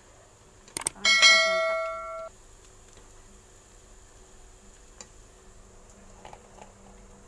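Subscribe-button animation sound effect: two quick mouse clicks, then a bright bell chime that rings for about a second and cuts off abruptly.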